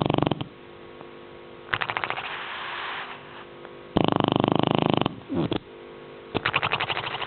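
Snoring: slow, regular breaths alternating about every two seconds between a fluttering, rattling snore and a louder, fuller rush of breath.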